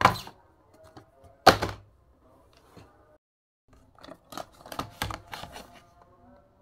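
Small cardboard Mini GT diecast boxes dropped onto a tabletop, two sharp thuds about a second and a half apart. Near the end comes a quick run of plastic clicks and knocks as the clear blister packs holding the model cars are handled.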